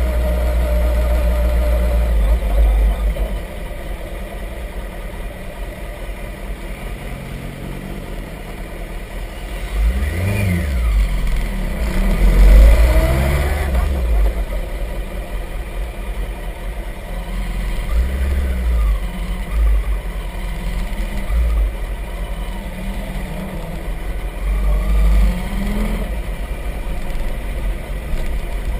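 Sport motorcycle engine heard on board while riding, its revs rising and falling several times, loudest about twelve seconds in.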